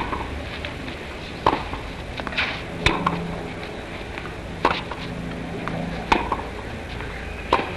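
Tennis ball struck back and forth with wooden rackets in a rally: five sharp pocks about a second and a half apart, over a steady hiss.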